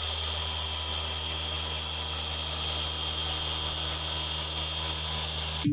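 A steady motor hum with a constant high whine over it, cutting off abruptly near the end.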